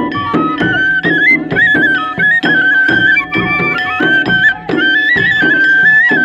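Traditional folk dance music: a high melody line over a steady drumbeat and held drone notes.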